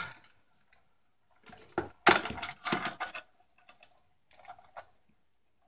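Clicks and knocks of hands working at the plastic insides of a Pelco PTZ dome camera while it is being taken apart: a cluster of sharp clicks about two seconds in, then a few lighter taps.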